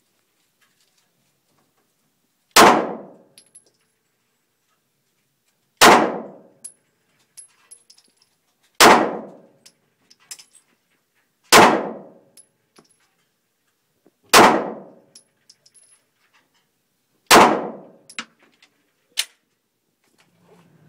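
Six 9mm pistol shots fired one at a time, about three seconds apart, each a sharp crack with a long echoing tail off the walls of an indoor range. Faint metallic tinkles of ejected brass casings landing follow the shots, and there is one last sharp tick near the end.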